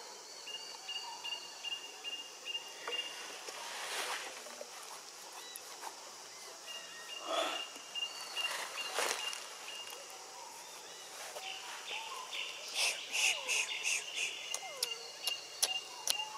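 Forest ambience: an insect's high, steady buzz starts and stops, with short chirping calls scattered through it and a run of sharp ticking in the last few seconds.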